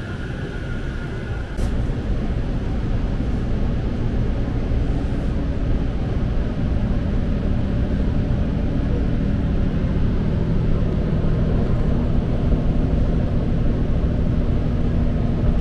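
Train passing along a station platform for the first second and a half. Then the sound cuts to the inside of a moving electric train: a steady rumble of wheels on rails with a low motor hum, growing slowly louder.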